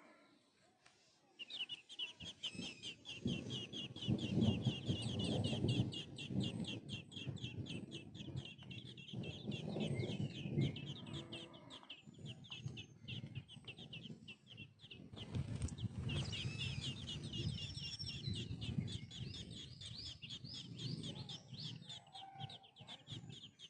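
Rufous-bellied thrush nestlings begging: a fast, continuous run of short high chirps, many a second, easing off for a few seconds in the middle, over a low rumbling noise.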